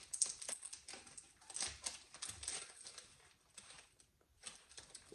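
Crinkling and crackling of a plastic snack wrapper as a pack of crisp butter biscuits is handled and opened, with irregular small clicks.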